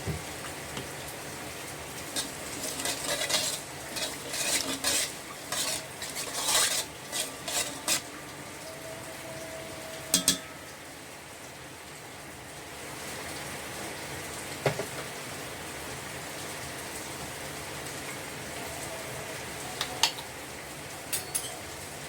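A utensil clinking and scraping against a pan as fried rice is stirred. The strokes come thick and fast for the first several seconds, then give way to a steady frying sizzle with only a few clinks, including two loud strikes about ten seconds in.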